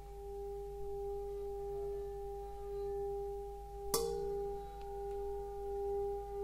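A metal singing bowl sounding a sustained ringing tone that swells and fades about once a second. About four seconds in, a sharp metal strike adds a bright, ringing attack.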